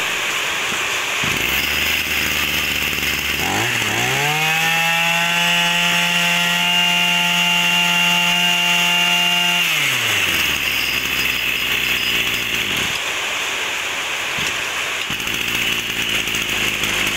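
26 cc two-stroke brush cutter engine idling, then revved to full throttle about four seconds in and held there for roughly five seconds before dropping back to idle.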